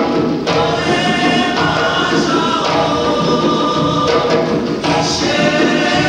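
A choir singing with musical accompaniment, in held notes and short phrases.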